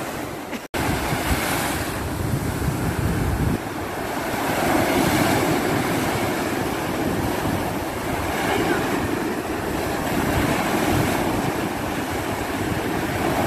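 Ocean surf breaking and washing up the beach, with wind rumbling on the microphone. The sound cuts out for an instant under a second in.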